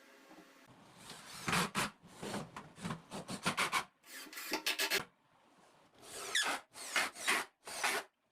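Rough rubbing strokes on wood, coming in several quick back-and-forth runs with short pauses between them.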